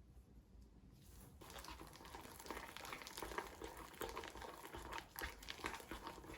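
Hands squishing and kneading slime, with a dense run of crackling and small popping clicks as air pockets burst. It starts about a second in and cuts off sharply at the very end.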